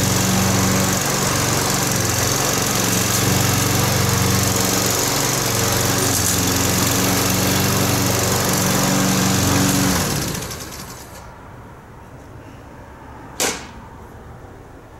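The small engine of a walk-behind lawn machine runs steadily, is shut off about ten seconds in and winds down. A single sharp knock follows a few seconds later.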